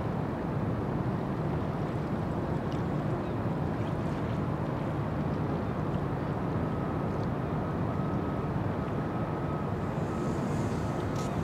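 Steady low rumble of the cruise ship Oriana's machinery carried across the harbour water, with a faint thin whine joining about halfway through.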